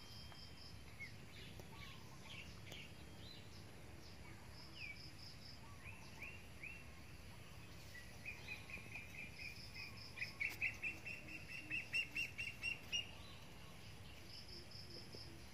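Wild birds singing and calling: a short, high trill repeats every few seconds, and another bird gives a fast run of chirps in the second half that builds in loudness and then stops.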